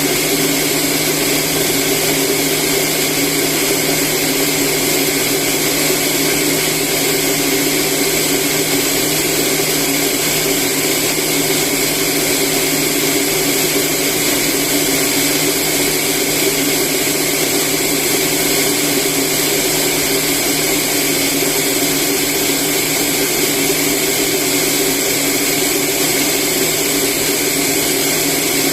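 Household rice polishing machine running steadily, its motor and milling drum whirring without change as it polishes brown rice into white rice.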